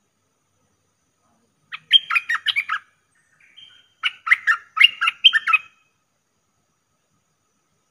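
Caged decoy bulbul singing two quick phrases of clear, bubbling notes, one about two seconds in and one about four seconds in, with a faint short call between them.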